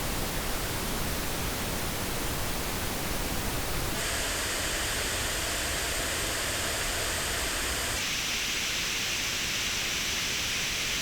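Pink noise test signal, a steady hiss, played through AKG K271 MKII and K701 headphones and recorded on an artificial ear. Its tone changes abruptly about four seconds in and again about eight seconds in, turning brighter and thinner in the bass as it switches between playbacks.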